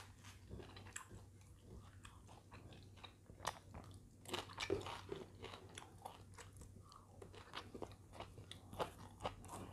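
Close-up eating sounds: a mouthful of rice, salted fish and sambal eaten by hand, chewed with soft crunches and wet clicks of the mouth. The clicks are busiest about halfway through, over a faint steady low hum.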